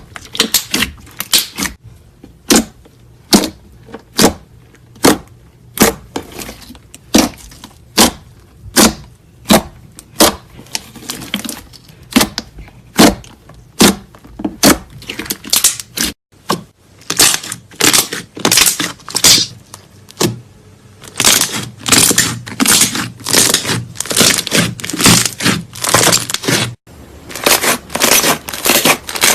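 Slime being pressed and poked, giving sharp pops about once or twice a second, then denser crunchy crackling after an abrupt cut about halfway through.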